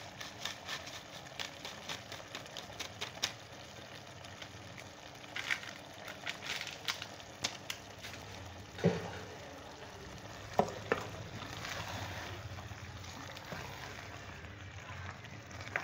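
Chicken and spice masala sizzling as it fries, stirred with a spoon that scrapes and clicks against the pan, with a few louder knocks around the middle.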